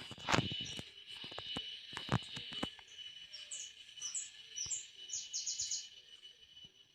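Birds chirping in short high calls, with a quick run of them near the end, over a steady high tone. Clicks and knocks come in the first few seconds.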